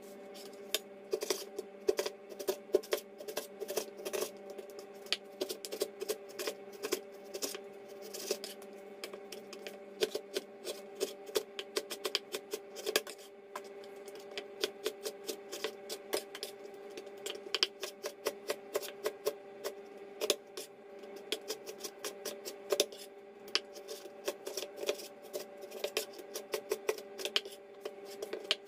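A cleaver chopping and slicing raw pork belly on a wooden chopping board: quick, irregular knocks of the blade on the board, several a second, over a steady hum.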